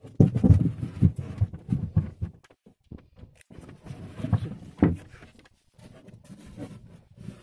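Irregular knocks, bumps and rustling as things are handled on a wooden boat, denser in the first couple of seconds and again about four to five seconds in.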